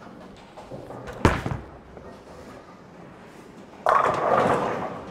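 A polished Storm Super Nova bowling ball lands on the lane with a sharp thud about a second in. Near the end the pins crash and clatter as the ball hits them.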